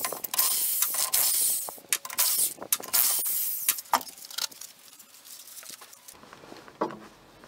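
Scraping, clicking and knocking of a van's rear road wheel being unbolted and pulled off its hub. The sound is loud and hissy with many sharp knocks for the first four seconds, then quieter with only a few knocks.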